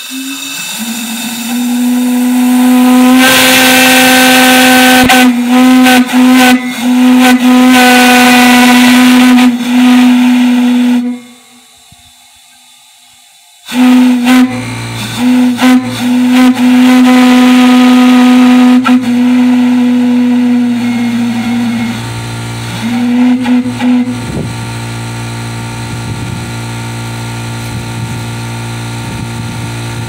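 A large single-note steam whistle blown on compressed air, sounding long blasts on one steady low note. There is a gap of about three seconds near the middle and a last short blast a little before the end. From about halfway a steady low hum runs underneath, and it carries on alone at a lower level after the last blast.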